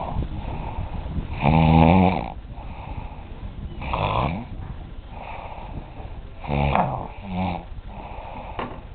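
A sleeping man snoring loudly: four deep, buzzing snores, the longest and loudest about a second and a half in, then one about four seconds in and a quick pair near the end, with softer breathing between them.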